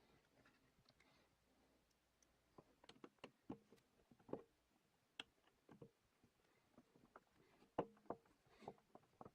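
Faint, irregular clicks and light knocks of a plastic light-switch wall plate being handled and fitted over the newly installed dimmer switch.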